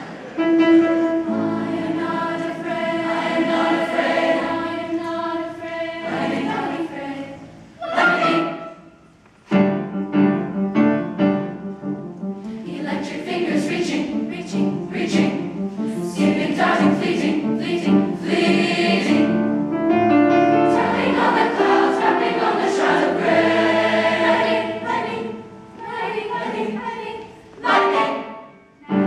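Honor choir singing a choral piece in parts, held chords moving through phrases, with a short break about nine seconds in and another near the end.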